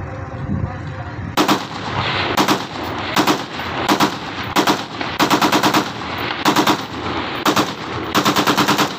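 Automatic gunfire in a series of short rapid bursts, about one burst a second, beginning a little over a second in, with longer strings of shots near the middle and near the end.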